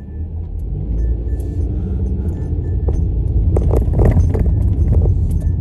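Car driving, heard from inside the cabin: a low rumble of engine and road noise that grows louder as the car gets under way, with a few clicks and jingles about four seconds in.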